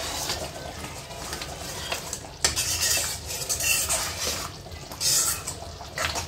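A spoon stirring a thick mutton curry in a steel pan, scraping and knocking against the metal in irregular strokes, with several louder scrapes from about two and a half seconds in.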